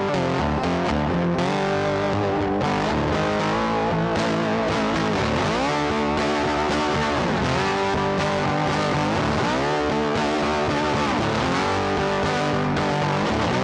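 Background music led by electric guitar, with notes bending in pitch.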